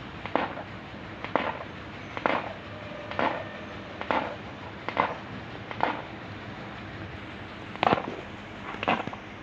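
An animal grinding its teeth: short grating strokes about once a second, nine in all, with a brief pause about two-thirds of the way through. Teeth grinding like this is a sign of abdominal pain.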